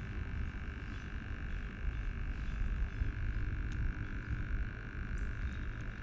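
A steady chorus of frogs calling, with a low, uneven rumble underneath.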